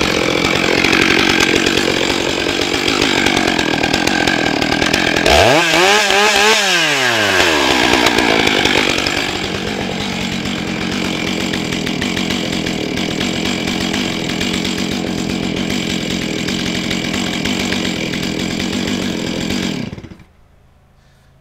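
A Stihl MS 661 chainsaw with a 24-inch bar cuts through wood slabs at full throttle. About nine seconds in it drops to a steady idle. It is switched off shortly before the end.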